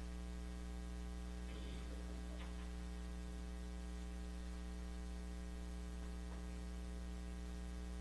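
Steady electrical mains hum: a low, even buzz with a ladder of overtones, carried on the sound system's audio feed. A few faint, brief sounds rise above it now and then.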